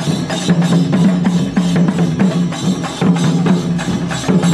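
Kerala temple procession drumming: frame drums (thappu) and cylindrical chenda drums beaten with sticks in a fast, dense rhythm.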